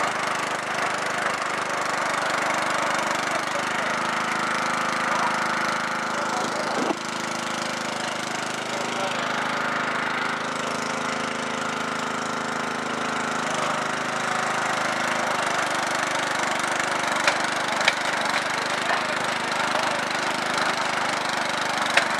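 1991 Murray 12 hp lawn tractor engine idling steadily, with a sharp click about seven seconds in and a few more near the end.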